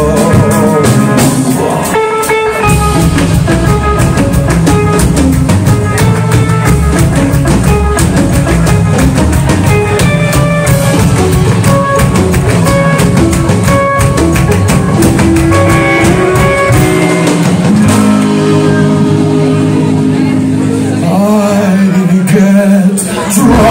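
Live band playing an instrumental passage: saxophone, upright double bass, guitar and drum kit.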